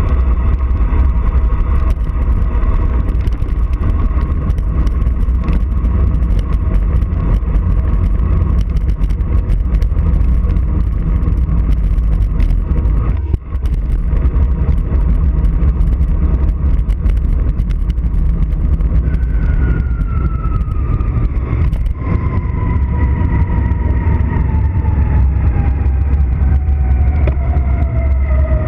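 Wind buffeting the action camera's microphone as a road bike descends at speed: a loud, steady low rumble of rushing air. In the last third a thin whine slides steadily down in pitch.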